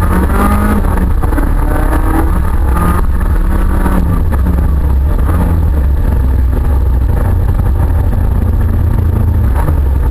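Autocross car's engine heard from inside the stripped, roll-caged cabin, loud with a heavy low drone. Its pitch rises and falls a few times in the first half, then it runs more evenly.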